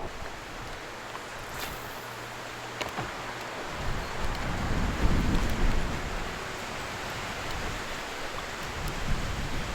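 Wind blowing across the microphone on open water, gusting into a heavier low rumble about four seconds in, with water noise around the boat.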